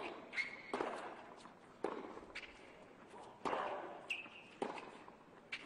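Tennis rally on a hard court: sharp racket strikes and ball bounces about once a second, each ringing briefly in the stadium, with a couple of short high shoe squeaks.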